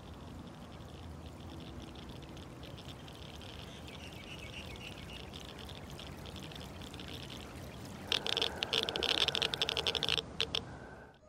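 A faint, steady background hiss, then about eight seconds in a handheld Geiger counter crackles with rapid, dense clicks for about two seconds. The clicking cuts off abruptly, with a few stray clicks after.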